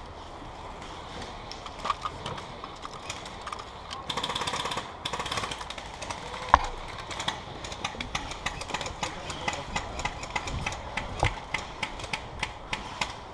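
Airsoft electric gun firing full-auto, two short rattling bursts about four to six seconds in, followed by a run of sharp clicks and knocks, a few a second, with one louder knock.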